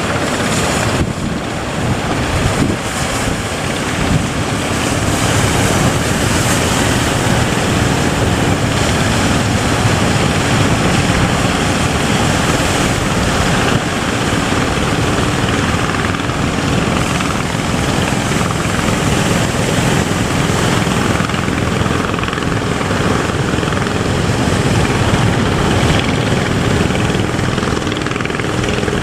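A boat's engine running steadily under a loud rush of wind and waves. The noise builds over the first few seconds, then holds.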